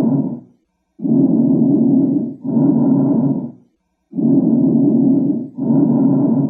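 Normal lung sounds heard through a stethoscope: a breath in and a breath out of about equal length and loudness, each about a second long, with a short pause after each breath, repeating about every three seconds.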